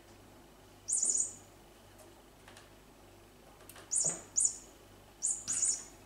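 Electronic toy mouse giving short, high chirping squeaks as a kitten paws it. There are about five bursts: one about a second in and the rest closer together in the second half. Faint taps come in between.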